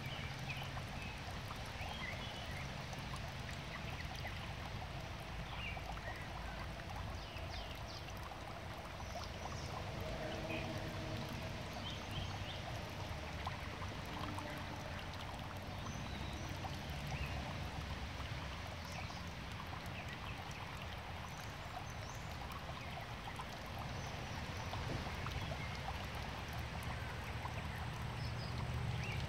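Water trickling steadily into a small garden fish pond, with scattered small drips landing on the surface.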